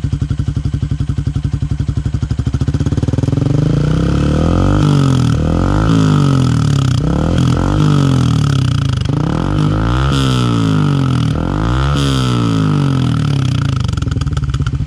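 Yamaha Sniper 150's single-cylinder four-stroke engine through a Yoshimura Alpha exhaust with the silencer insert fitted. It idles, is revved up and down several times from about two and a half seconds in, and settles back to idle near the end.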